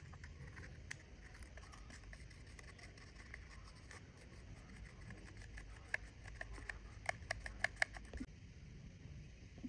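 Light scratching and small clicks of tools on watch parts at a workbench, with a quick run of sharp clicks about six to eight seconds in.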